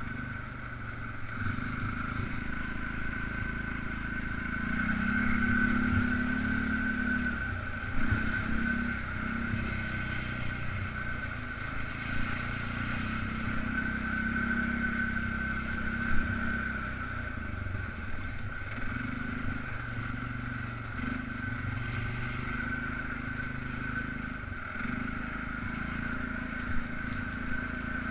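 Polaris Sportsman 500 ATV's single-cylinder engine running as it is ridden along, its note shifting up and down with the throttle. A few sharp knocks come through, around 8 s and again around 16 s.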